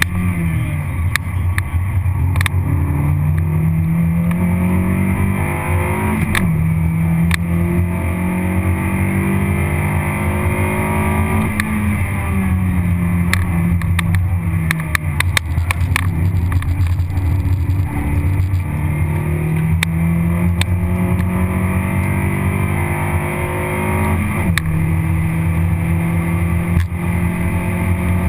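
Toyota Vitz RS track car's four-cylinder engine heard from inside the cabin at full speed. Its pitch climbs under acceleration, drops sharply at gear changes or lifts about six and twenty-four seconds in, and falls away under braking around twelve seconds in. Scattered sharp clicks run over it.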